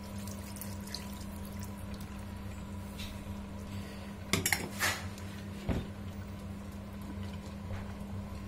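Egg-lemon sauce pouring from a small aluminium saucepan into a stainless steel stew pot, then a few light metal clinks and a knock about halfway through as the saucepan touches the pot and is set down, over a steady low hum.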